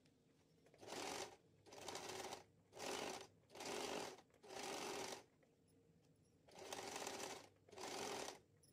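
Compact electric sewing machine stitching in short stop-start runs, seven in all with a pause of about a second in the middle, as the facing is turned little by little to follow the curve of a blouse neckline.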